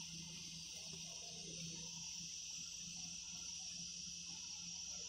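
Sugar paratha sizzling faintly in oil or ghee on a hot tawa: a steady high hiss with a low hum underneath.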